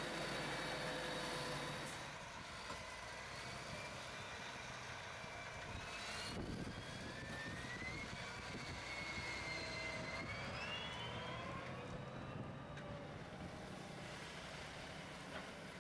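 A Claas Jaguar 960 forage harvester's engine runs for about the first two seconds. Then John Deere tractors pull loaded silage trailers past, their engines running with a whine that rises in pitch as they gather speed. A thump comes about six seconds in.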